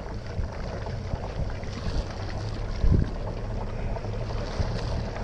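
Wind buffeting an action-camera microphone over the steady low rumble of a boat, with scattered low thumps and one louder thump about three seconds in.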